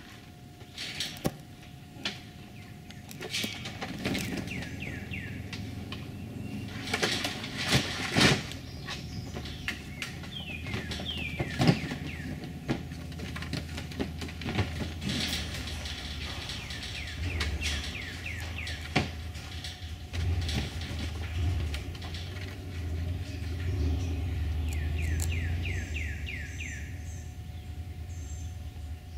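Songbirds calling in quick runs of short down-slurred chirps, over a few sharp knocks. A low rumble comes in about halfway.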